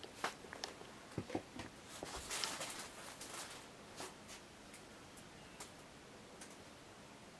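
Faint scattered clicks and a short rustle about two to three seconds in, then only a steady faint background.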